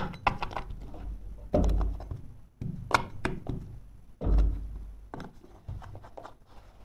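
Hands pressing and tapping a glued carpet edge down along a skirting board: two dull thumps and a few lighter knocks and clicks.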